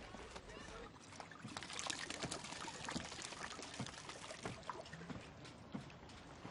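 Clear liquor pouring out of a tipped glass bottle in a thin stream, trickling and splattering. It swells about a second and a half in and thins out after about four and a half seconds.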